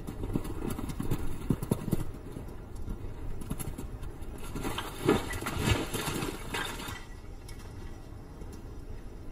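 Bharal hooves clattering and scraping on steep rock as the animals scramble and chase, in irregular clusters of knocks. The loudest knock comes about five seconds in, and it goes quieter near the end.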